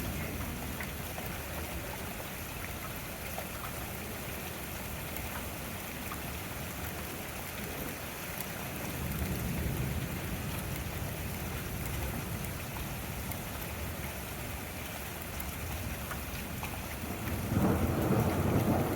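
Steady rain falling, with a low roll of thunder rising and fading about halfway through, and a louder rumble of thunder breaking in near the end.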